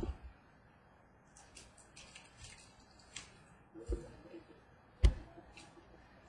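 Baseball cards being handled: faint sliding rustles, then two dull knocks, the second, about five seconds in, the louder.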